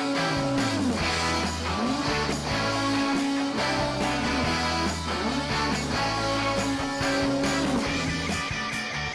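Background music led by guitar over a steady bass line, with sliding notes.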